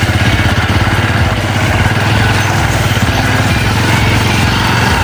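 Trail motorcycle engine running steadily at low revs with a rapid, even chugging pulse.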